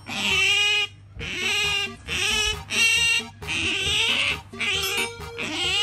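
Asian small-clawed otter giving a run of about six high-pitched squealing calls in quick succession, begging for food held out to it.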